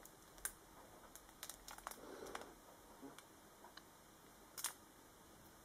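Faint, scattered crinkles of a clear plastic sleeve on a doujinshi as it is handled, with one slightly louder crackle near the end; otherwise near silence.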